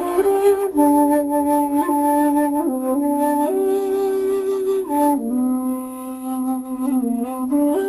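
Slow instrumental flute music: long held notes in two voices, the melody stepping to a new pitch every second or two over a lower sustained line.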